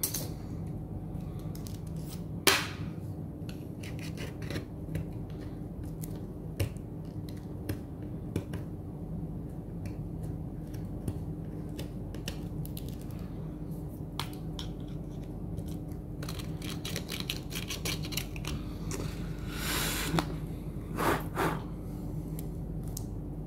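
Small scrapes, clicks and taps of a hand tool working on a smartphone's frame as old screen adhesive is cleaned off, over a steady low hum; a run of louder scraping comes near the end.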